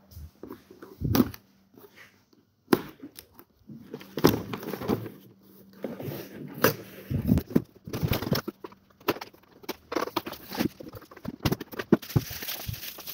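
A cardboard box holding a new ATV/UTV axle being opened and unpacked: irregular knocks, scrapes and cardboard rubbing, with plastic wrapping crinkling near the end.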